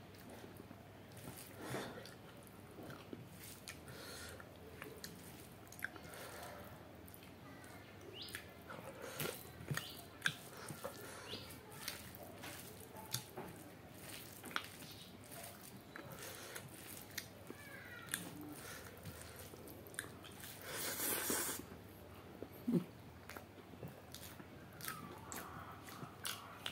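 Close-up wet chewing and lip smacking of chicken curry and rice eaten by hand, with scattered small clicks and squelches as fingers mix the rice. A louder, breathy rush of noise lasts about a second, a little past two-thirds through.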